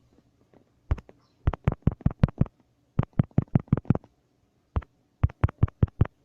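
Sharp knocks in quick bunches, about five a second, broken by short pauses.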